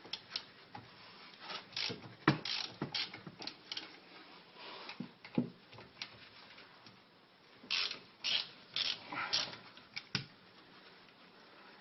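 Ratchet wrench clicking in short runs with pauses, backing out the loosened 12 mm brake caliper bolts.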